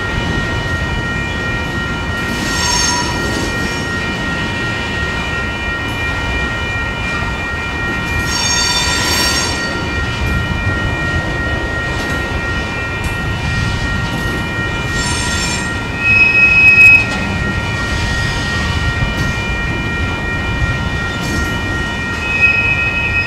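Loaded covered hopper cars of a Union Pacific freight train rolling past with a steady rumble. Steel wheels squeal in short bursts every few seconds, loudest in one brief high squeal about two-thirds of the way through.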